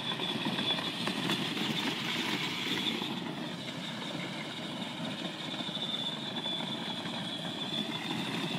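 Battery-powered Power Wheels ride-on toy truck driving, its electric motors and gearboxes giving a steady high whine over the rolling of its plastic wheels on hard dry dirt.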